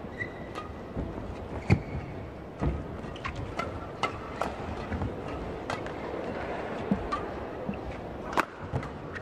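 Badminton doubles rally: rackets strike the shuttlecock in sharp cracks, one after another about every half second to a second, over a steady hum of the arena.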